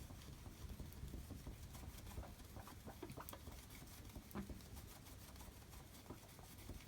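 Faint, scattered small clicks and light scratchy rubbing from hands handling and wiping a phone display, over a low steady room hum.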